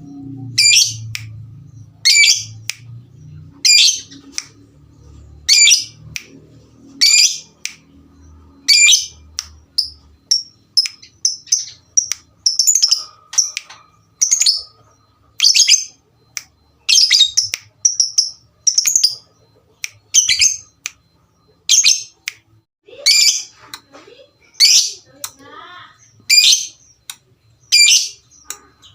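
Lovebird calling: short, loud, high-pitched chirping calls repeated over and over, roughly one every second or so, coming thicker and faster in the middle.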